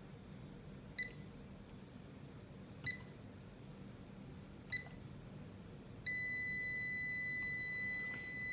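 Klein MM700 multimeter beeping: three short beeps about two seconds apart, then about six seconds in its continuity beeper comes on as one steady tone. The steady tone means the meter is reading a near-zero resistance across its leads, about 0.1 ohm.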